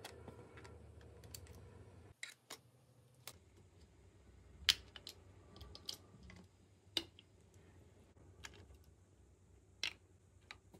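Faint, irregular sharp clicks and snaps of pliers and a plastic pry tool working on a WD Black P10 external hard drive's plastic casing as the drive is levered out. The loudest click comes a little under five seconds in.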